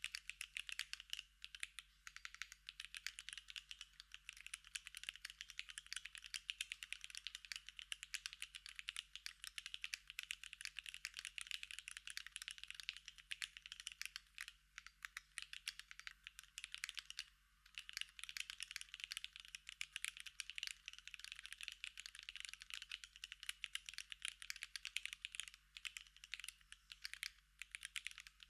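Typing on a Sangeo65 mechanical keyboard with Gateron China Joy switches: a fast, continuous patter of keystrokes, with a couple of brief pauses just past the middle.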